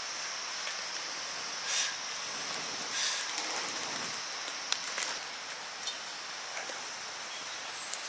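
Outdoor rural ambience: a steady high insect buzz over a hiss, with a few scattered small clicks.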